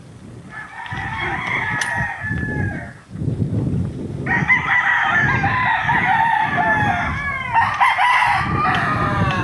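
Roosters crowing. One crow comes about half a second in and lasts about two seconds, then a longer stretch of crowing starts about four seconds in, with calls overlapping. A low rumble runs underneath.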